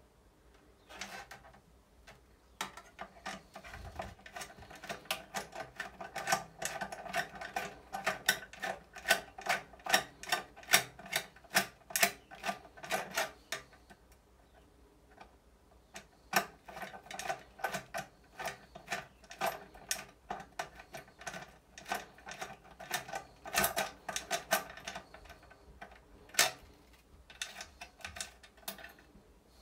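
Screwdriver backing screws out of an attic exhaust fan's sheet-metal housing: a quick, uneven run of sharp metallic clicks, in two stretches with a short pause about halfway.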